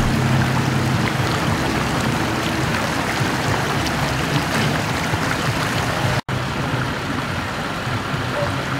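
Floodwater from a burst 16-inch water main flowing fast across a paved street, a steady rushing sound. It cuts out for an instant about six seconds in.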